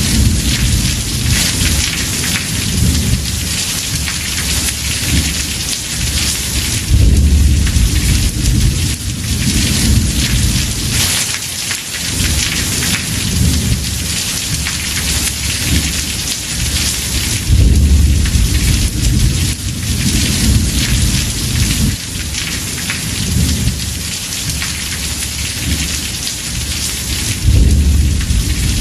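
Heavy rain pouring on a house roof, a steady hiss, with thunder rumbling low throughout. The thunder swells into louder rolls three times, about ten seconds apart.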